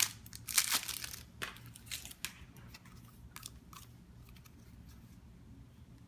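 Wrapping on a deck of playing cards being torn open and crinkled. The crackling is densest in the first second and a half, thins to a few small crackles and stops a little past halfway.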